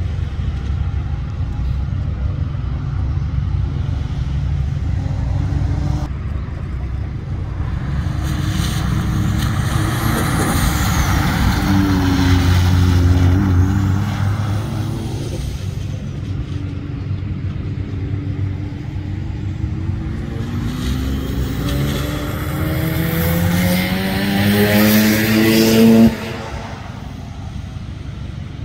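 Cars lapping a wet circuit, engines running past one after another with a rush of tyre noise on the damp asphalt as each goes by. From about 20 s in, one engine pulls hard, rising steadily in pitch, until the sound cuts off abruptly about 26 s in.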